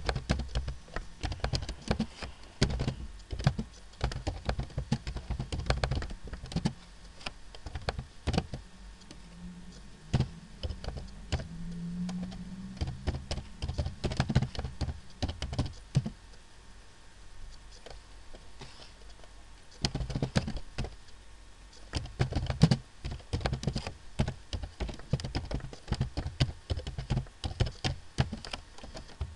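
Computer keyboard typing: irregular runs of keystroke clicks, slowing for a few seconds about halfway through.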